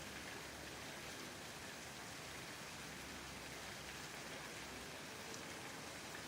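Steady hiss of water, even and unbroken.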